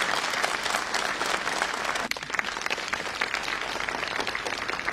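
A large audience applauding, many hands clapping at once, easing slightly after about two seconds.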